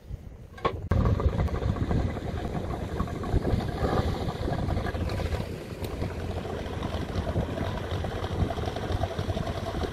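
Mercury 50 hp outboard with a water-jet unit catching just after a click about a second in, then running steadily as the inflatable boat pulls away.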